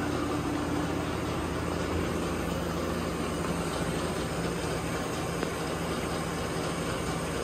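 Steady hum and whir of a powered-up Mitsubishi RC32-B CNC cylindrical grinder, a low even tone under a constant hiss.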